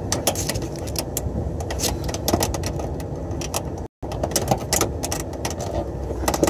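Small metallic clicks and rattles of wires and wire connectors being handled and twisted, over a steady low background rumble. The sound cuts out completely for a moment about four seconds in.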